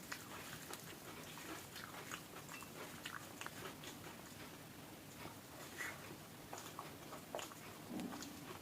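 Close-miked eating: a person chewing a meal of rice and curry, with irregular soft clicks and lip-smacks.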